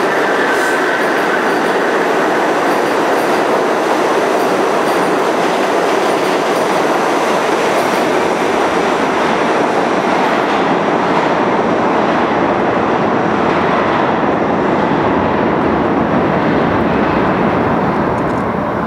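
An R68 subway train running through the station on the express track without stopping: a loud, steady rumble and rattle of wheels on rails, easing slightly near the end.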